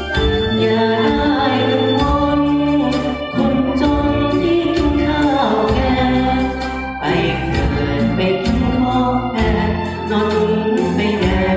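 Karaoke backing music of a ballad, played loud over a PA system, with a man singing along into a microphone.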